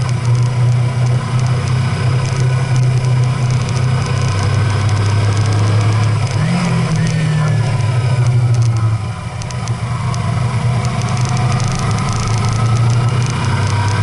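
Motor vehicle engine running steadily while driving, with road noise. Its pitch rises a little about six and a half seconds in and falls back about two seconds later, as with a change of throttle or gear.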